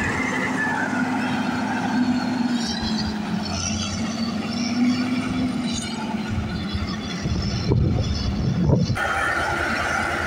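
Caterpillar 140K motor grader's diesel engine running under load, with high wavering squeaks over it and a heavier low rumble a couple of seconds before the end. About a second before the end the sound cuts to a road roller running with a steady high whine.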